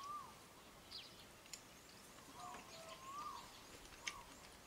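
Faint birdsong: one bird repeating short whistled notes that rise and fall, with quick high chirps from other birds and a few light clicks.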